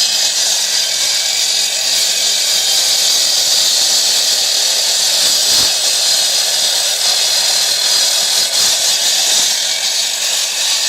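Diaquip 350mm electric disc cutter with its diamond blade grinding steadily through hard material, a loud, even, gritty hiss.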